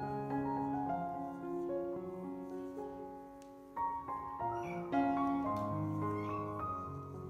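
Slow piano music with held notes. A cat meows faintly a few times in the second half.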